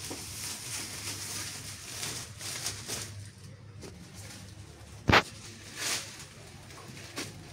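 Steady low hum and faint hiss of an indoor space, with one sharp knock about five seconds in and a softer rustle just after it.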